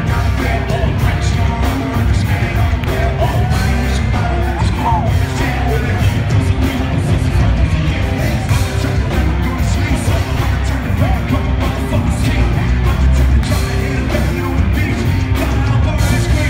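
Live rap-rock band playing loud, with drums, electric guitar and a heavy bass low end under a vocalist singing into a microphone, heard from within the audience.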